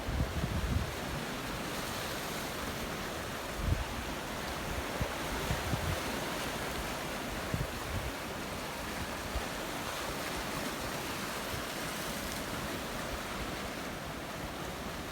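Sea surf washing on the shore as a steady hiss, with wind buffeting the microphone in low thumps now and then.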